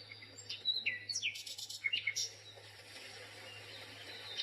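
Small birds chirping in short rising and falling calls, with a quick run of sharp clicks between one and two seconds in and a steady low hum underneath.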